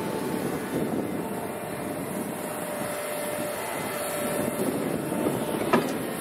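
Doosan DX225LCA excavator's diesel engine and hydraulics working steadily as the bucket presses sand into a truck bed, with a steady whine over the engine and one sharp clank near the end.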